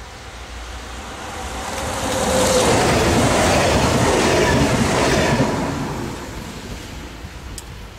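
CFL 2N NG double-deck electric multiple unit passing at speed: a rushing rail noise that builds, stays loudest for about three seconds in the middle, then fades away.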